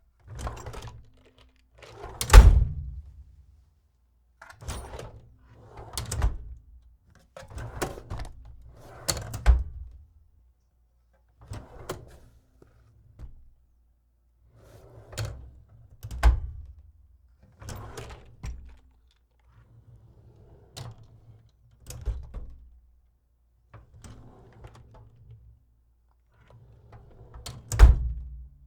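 Metal drawer sliding open and shut again and again, each slide with a short rumble and the closes ending in a sharp metallic knock; the loudest knocks come about 2.5 seconds in and near the end.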